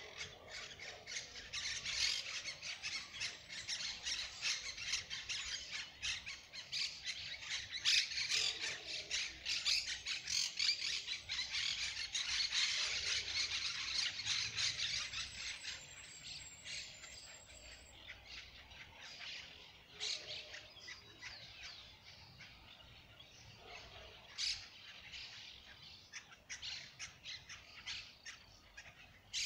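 A flock of birds chattering and squawking, many short high calls overlapping into a dense din for the first half, then thinning to scattered calls after about fifteen seconds.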